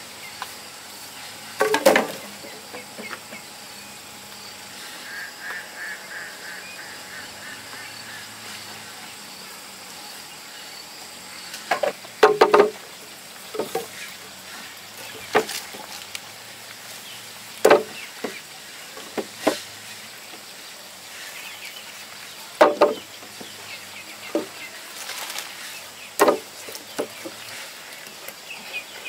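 Bamboo poles knocking against each other and against a bamboo frame as they are laid down side by side: short, sharp wooden knocks, one a second or two before a quick cluster about twelve seconds in, then one every second or two after that.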